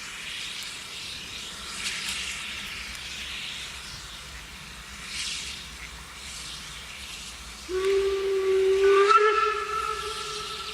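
Steam locomotive 18 201 hissing steam, swelling twice. Near the end its steam whistle starts abruptly with a long, loud blast of several tones.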